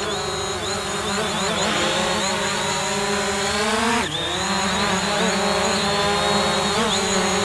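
Hubsan Zino quadcopter's four propellers whining in a steady multi-toned buzz as it hovers low, the pitch wavering with small stick corrections. About four seconds in the pitch dips briefly, then rises again as the drone climbs.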